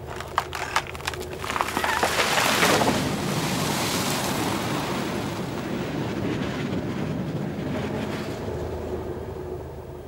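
A beaver-gnawed tree cracking sharply several times as it gives way, then crashing into the water with a big splash, the rush of water and branches slowly dying away near the end.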